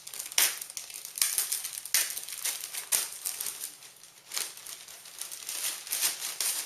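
Packaging crinkling and rustling in repeated short bursts as a netbook is pulled out of its wrapping, with the loudest crinkles in the first couple of seconds.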